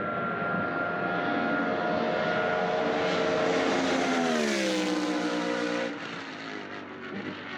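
A vehicle engine running at a steady pitch that falls away about four seconds in, then cuts off abruptly near six seconds.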